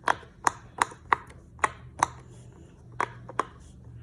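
Sharp clicking pops from the 'loud side' of a frog puppet fidget toy being worked by hand, about nine at uneven intervals.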